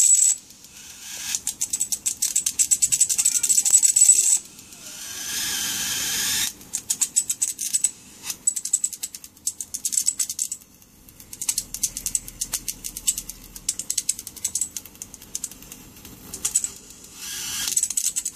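High-voltage arcing from a Sharp 26-inch CRT television's flyback transformer, drawn from the anode lead: bursts of rapid crackling snaps with short pauses between them, and a steadier hissing arc about four seconds in and again near the end.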